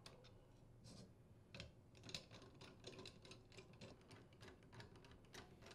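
Faint, irregular small clicks and ticks of a flathead screwdriver working the screws of a metal garbage disposer mounting bracket, as the screws are loosened.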